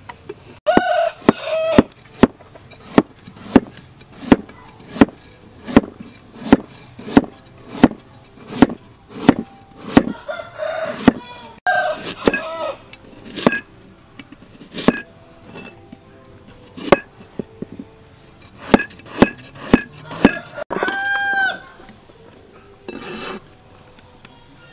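Kitchen knife chopping carrots on a cutting board, a steady run of sharp knocks about one every 0.7 seconds. A rooster crows and chickens cluck in the background, with one long crow near the end.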